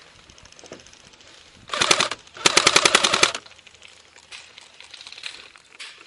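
An airsoft gun firing on full auto close by: a short burst, then a longer burst of about a second, a fast even rattle of shots. Fainter scattered shots follow.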